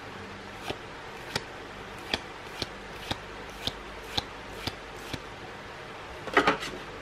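Magic: The Gathering cards being flicked through one at a time, each card snapping off the stack with a short sharp flick about every half second, nine in all, then a louder quick flurry of card flicks near the end.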